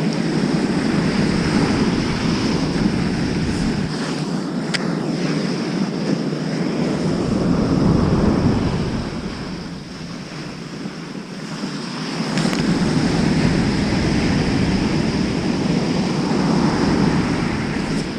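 Heavy surf breaking and washing up a sandy beach, a continuous rush that swells and eases with the waves and drops back for a couple of seconds midway before building again.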